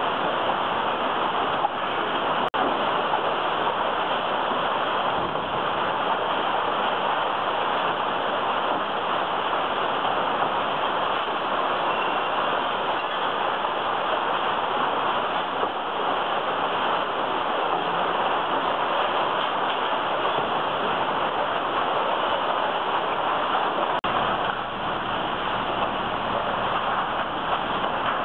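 Steady din of a single-stream recycling sorting line: conveyor belts and sorting machinery running, carrying loads of mixed recyclables. A deeper hum joins in near the end.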